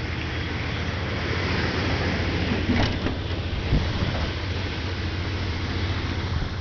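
Dodge Ram 1500's 5.2-litre V8 running, a steady low hum under a breathy hiss that swells a little about two seconds in. The hiss may be the blowing noise the owner hears when he presses the gas, cause unknown to him.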